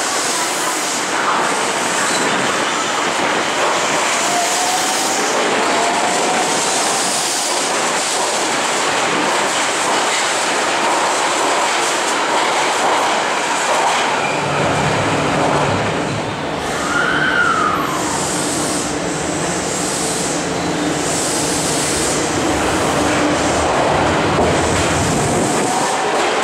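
Higashiyama Line subway trains in an underground station. One pulls away with a faint rising motor whine over steady running noise. About halfway through, a deeper rumble joins in.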